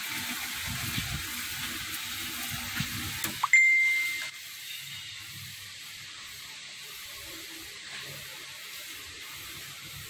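Horizontal metal-cutting band saw sawing through a thick round steel bar. About three and a half seconds in, as the cut finishes, a loud single metallic ding rings at one pitch for under a second, and the sawing noise drops away to a quieter steady background.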